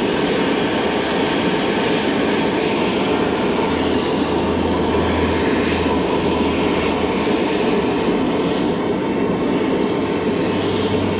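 Blacksmith's forge running with a steady rushing noise while a steel striker heats for hardening. A low hum joins it about four seconds in and again near the end.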